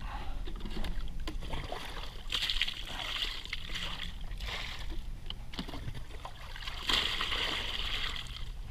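Water poured from a plastic jug splashing over a gutted blacktip shark's carcass in a kayak's footwell, rinsing out blood and remains. It swells twice, about two seconds in and again near the end.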